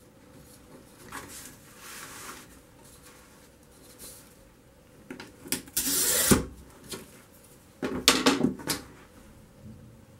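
Glass being worked with plastic running pliers: a short scratchy scrape about six seconds in, then a quick run of sharp clicks and cracks near eight seconds as the pliers are squeezed and the scored semi-opaque glass cracks along the line. The break hangs on partway, held by a sticker on the back of the glass.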